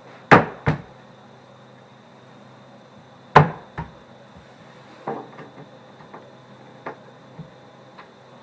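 Sharp wooden knocks and clacks from cabinet panels being fitted and tapped together during flat-pack assembly: two close together at the start, the loudest about three seconds in, then several lighter taps.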